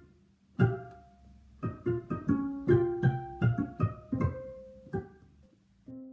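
Instrumental background music of plucked string notes, each struck sharply and dying away, with a quick run of notes in the middle and a short pause near the end.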